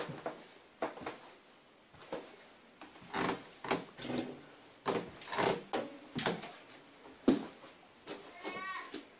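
Irregular sharp clicks and knocks, about a dozen spread over several seconds, some with a short ringing tail, and a brief squeaky pitched sound near the end.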